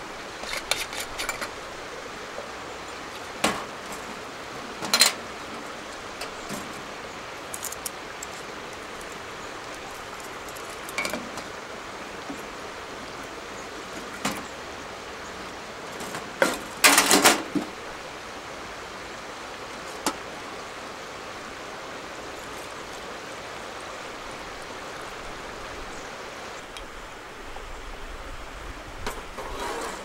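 Scattered clinks and knocks of objects being handled, the loudest a short burst of rattling about seventeen seconds in, over a steady background hiss.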